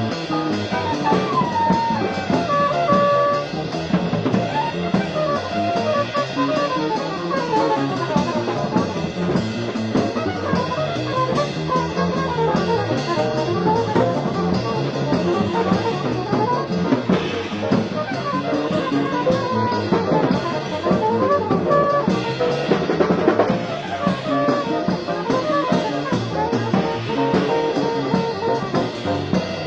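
Live jazz quartet playing: cornet, piano, bass and drums, with the horn and drums up front. It was taped on a cheap cassette recorder, so the sound is dull and muffled, with no top end.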